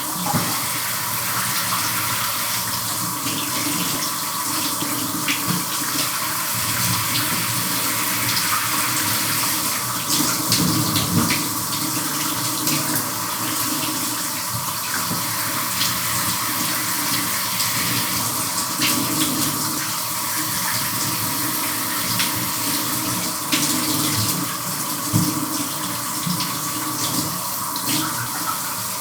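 Shower running with someone washing under it: a steady hiss of spray broken by irregular louder splashes.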